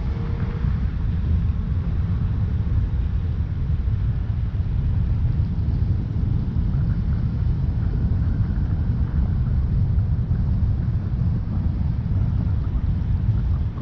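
Steady low rumble of a car being driven: road and engine noise.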